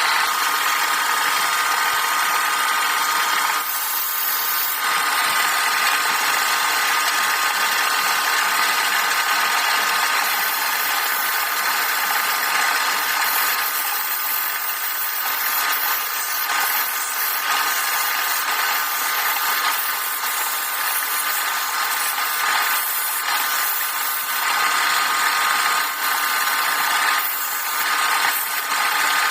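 Wood lathe running steadily, its motor whining with a constant pitch while a tool cuts the spinning wood, with small dips in the cutting noise here and there.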